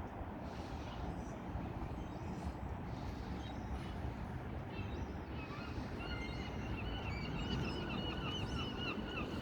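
Steady low rumble, with a bird's rapid string of short repeated calls starting about halfway through.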